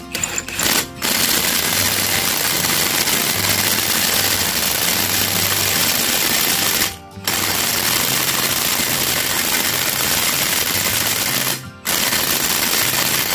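Cordless impact wrench hammering on a large nut with a 41 mm socket, in three long bursts of about six, four and two seconds with short pauses between them.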